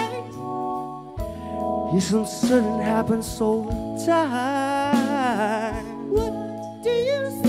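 Live band playing, with a singer's voice over held chords and bass, including a long wavering vocal note about four seconds in.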